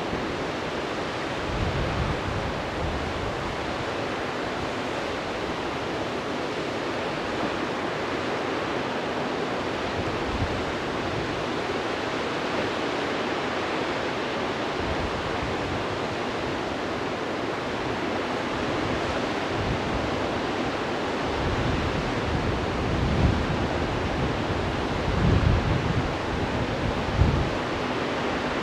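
Steady rush of a white-water mountain river, the young Rhone, tumbling through its rocky gorge. Wind buffets the microphone with a few low gusts near the end.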